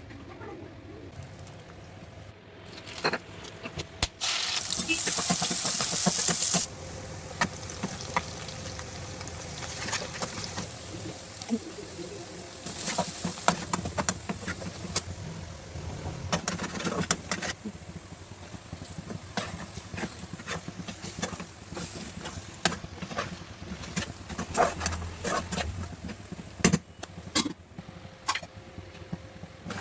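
Cooking at the stove: a loud hiss lasting about two seconds, about four seconds in, then frequent sharp clicks and knocks of a utensil working in a pan.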